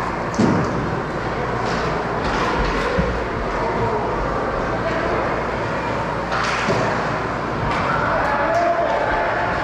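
Ice hockey rink ambience during a game: a steady din of voices and rink noise, with a few sharp knocks, the loudest about half a second in.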